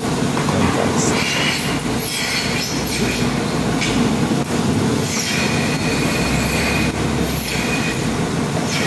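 Rotary milking platform turning: a steady mechanical rumble with high squeals that come and go twice, and a few metallic clanks.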